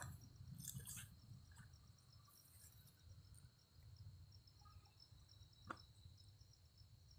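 Near silence with faint, steady cricket chirping at night, a few soft rustles in the first second and one short click near the end.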